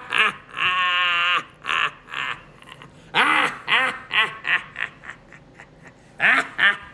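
A man's exaggerated, mocking laughter: one long wavering cackle starting about half a second in, then further bursts of laughter, the last near the end.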